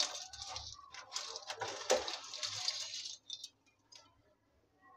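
Dry noodles sliding off a plate into a wok of boiling water: a hiss of bubbling water with rustling and light clinks, stopping about three and a half seconds in.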